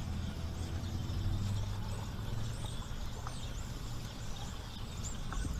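Fishing reel being cranked against a hooked fish or bird, a faint whir that fades after about a second and a half, over a steady low wind rumble on the microphone. Birds chirp here and there.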